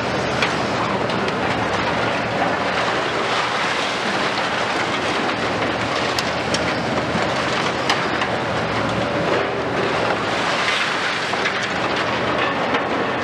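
Diesel engines of a Liebherr 974 and a Hitachi 870 high-reach demolition excavator running steadily under load, while their demolition jaws crush the concrete of a high-rise. Falling rubble makes a constant crackle, broken by a few sharp cracks.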